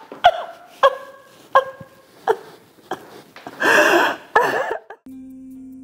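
A woman sobbing: short, pitched sobs about every three-quarters of a second, then a longer, louder wail about four seconds in. Music with a steady low tone comes in near the end.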